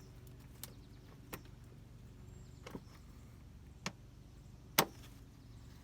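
Five light, sharp clicks and knocks, about a second apart and the loudest near the end, as the bottom socket of a new RV gas lift strut is worked onto its mounting stud.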